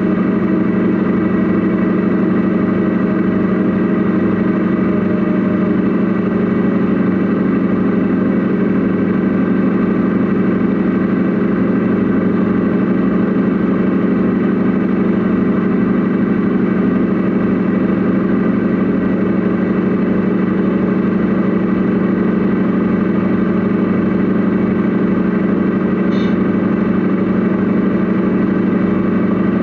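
Steady engine-like running sound heard from inside the cab of a radio-controlled Mercedes Actros SLT truck model, holding one even pitch without revving.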